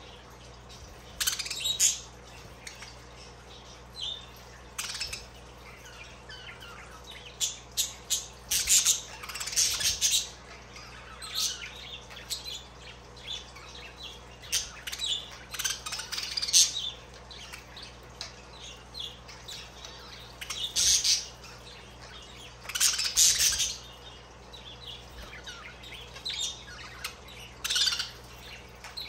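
Budgerigars (budgies) chirping and calling in many short, scattered bursts, some in quick runs of several calls, with pauses of a few seconds between.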